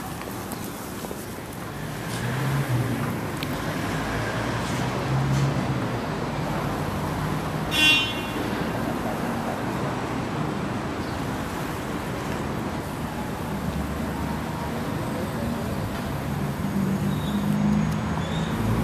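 Street traffic: cars passing with their engines running over a steady rush of road noise, swelling twice. About eight seconds in there is a brief high-pitched squeak.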